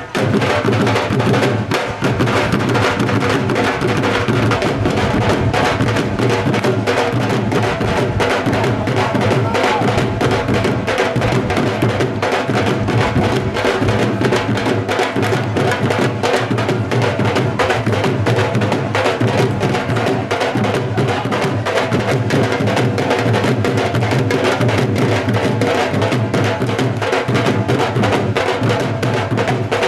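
Live dhol drumming in a bhangra rhythm: sharp stick cracks on the high side over the deep booming bass side.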